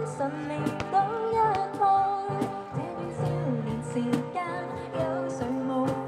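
A woman singing a slow pop ballad in Cantonese through a microphone and PA, with a man strumming an acoustic guitar alongside her.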